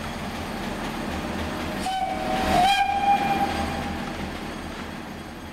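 Steam whistle of NSW C30 class tank locomotive 3112: one blast of about a second and a half, some two seconds in, over steady background noise.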